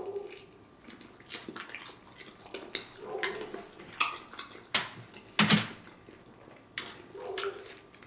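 Close-miked eating of crispy fried chicken wings: crunching bites into the batter, chewing and wet mouth sounds, as clicks and crackles with the loudest crunch about five and a half seconds in.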